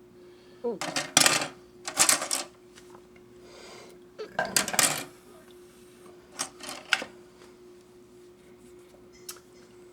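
Hard plastic model-kit parts and runners clattering and clicking as they are handled on a table, in several short bursts of rattling clicks with pauses between. A faint steady hum runs underneath.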